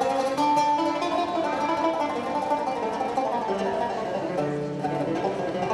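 Kanun, the Turkish plucked zither, playing a melody of plucked notes.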